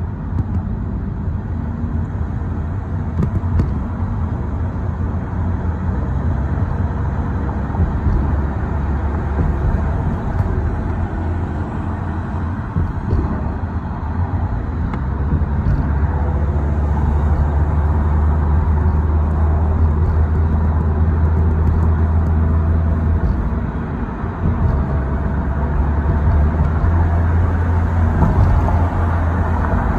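Road and engine noise of a moving car heard from inside the cabin: a steady low rumble that grows a little louder about halfway through.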